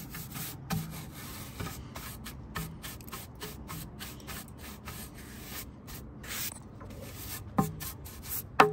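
Stiff-bristle scrub brush scraping back and forth over the worn felt gasket on a Big Green Egg's ceramic rim, stroke after stroke, to get the old gasket off. Two sharp knocks come near the end.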